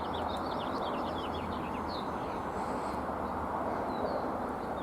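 Small birds chirping: a run of short, quick, high chirps, thickest in the first second and a half and then scattered, over steady low background noise.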